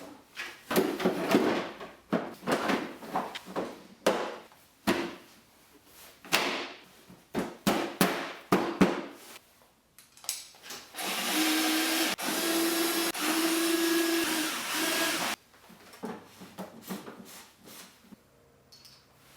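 A small electric motor whirring in many short bursts, then running steadily for about four seconds before cutting off abruptly, followed by fainter handling clatter.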